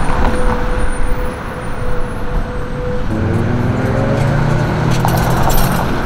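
Road traffic passing. About halfway through, a vehicle's engine pulls away, its pitch rising steadily as it accelerates.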